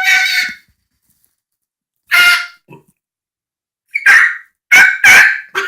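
Imitation crow caws, loud and harsh, made by a person: single caws at the start and about two seconds in, then three more in quick succession near the end.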